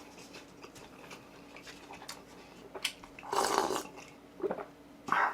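Close-miked eating sounds: quiet chewing and small mouth clicks, with a louder, noisy mouth sound lasting about half a second a little over three seconds in, and a shorter one near the end.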